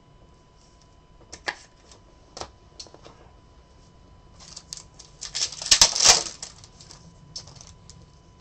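A few sharp plastic clicks and taps as a trading card is slid into a rigid top loader and set down, then a burst of crinkling as a foil trading-card pack is handled and torn open, loudest about six seconds in.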